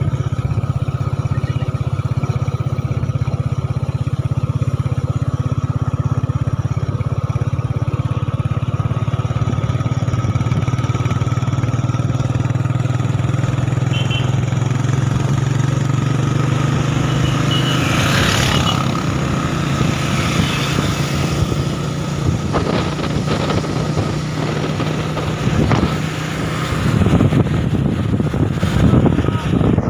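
Motorcycle engine running steadily under way, recorded from the rider's seat, with wind rushing over the microphone. The wind noise grows stronger and more gusty about two-thirds of the way through.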